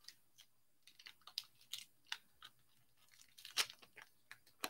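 Foil wrapper of a hockey card pack being torn open and crinkled by hand: a run of irregular crackles, the loudest a little past halfway.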